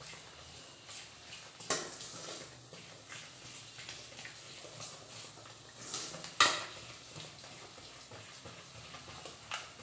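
Ragi flour and water being stirred into a thick batter with a spoon in a stainless steel bowl: soft wet scraping, broken three times by sharp knocks of the spoon against the bowl, the loudest about six and a half seconds in.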